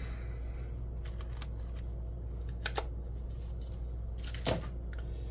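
Small craft items being handled at a table: a few light clicks and knocks, the loudest near the end, over a steady low hum.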